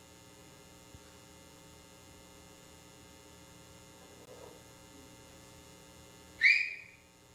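Steady electrical mains hum in the recording. About six and a half seconds in, a short, loud, high-pitched squeak slides up a little and holds for about half a second.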